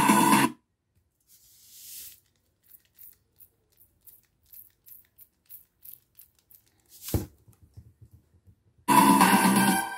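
Electronic music from a small homemade cardboard Bluetooth speaker cuts off half a second in. Then salt is sprinkled onto the speaker cone: a short soft hiss, scattered faint ticks of grains and one dull thump about seven seconds in. The music starts again through the same speaker near the end.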